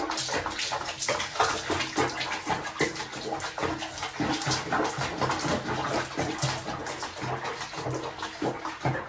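Water splashing and sloshing in a sink basin of soapy bathwater around a bathing cat, with many short irregular splashes.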